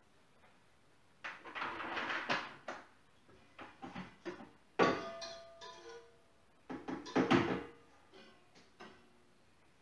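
Kitchenware being handled: bowls and utensils knocked and set down on the worktop in several short bursts of clatter. A sharper strike about five seconds in leaves a ringing tone, like a metal bowl being struck.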